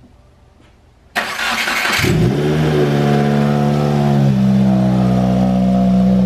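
A 2015+ Subaru WRX's turbocharged flat-four, fitted with an aftermarket IBR exhaust manifold, is cranked by the starter about a second in. It catches a second later, flares briefly, and settles into a steady idle that drops a little in pitch about four seconds in.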